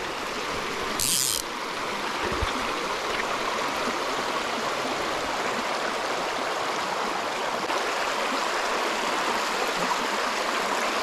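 Shallow river riffle rushing over cobbles, a steady noise of running water, with a short sharp hiss about a second in.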